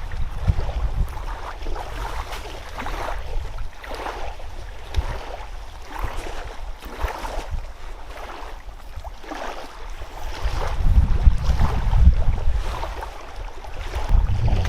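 Wind buffeting the microphone in gusts, swelling strongest about eleven to thirteen seconds in, over a run of irregular soft swishing noises.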